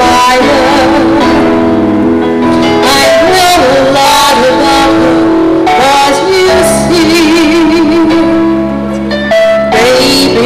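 A woman singing a song into a microphone over instrumental accompaniment, with vibrato on held notes.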